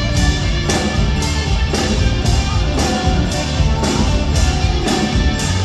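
Live band playing an instrumental passage: a steady drum beat about twice a second under electric bass and guitar.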